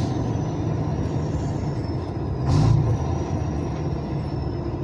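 A truck engine running steadily at low revs in slow, congested traffic, heard in the cab, with a faint high whine slowly falling in pitch. About two and a half seconds in comes a short burst of hiss, the loudest moment.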